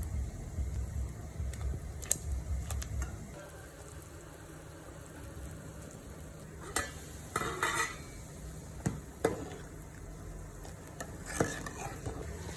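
A utensil stirring in a cooking pot, scraping and clinking against the pot. Low rumbling handling noise comes first, then several separate sharp clinks and short scrapes.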